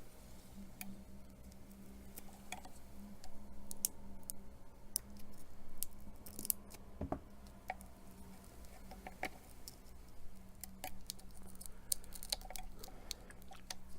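Irregular small clicks and scrapes of a sharp pry tool working around the edge of a Samsung Galaxy S5's glued front screen to lift it, over a steady low hum.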